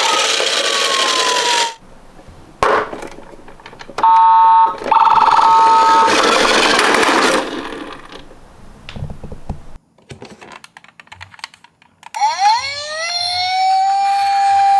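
A siren winds up about three-quarters of the way through, a rising wail that levels off into a steady high tone. Before it come short bursts of hiss-like noise, one with a falling tone, and a brief series of electronic beeps.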